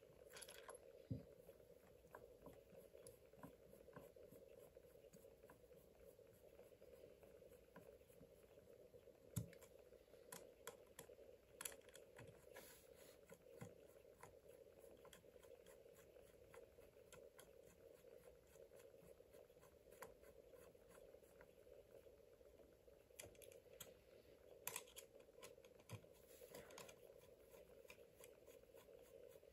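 Near silence over a faint steady hum, with scattered light clicks and taps of small parts being handled and fitted. The clearest tap comes about nine seconds in, and a few more cluster around twenty-five seconds in.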